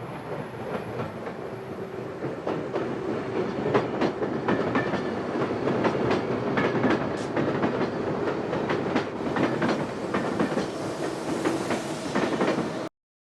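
Passing train, its wheels clattering over the rail joints with a running rumble and many sharp clicks.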